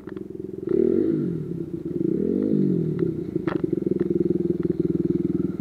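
Dirt bike engine idling close by, revved up twice and falling back, with a few sharp clicks and knocks in the second half.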